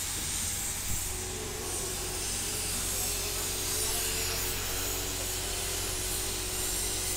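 Ship's crane and deck machinery running steadily under load, lifting a wind turbine tower section: an even hiss over a low hum, with a steady whine that sets in about a second in.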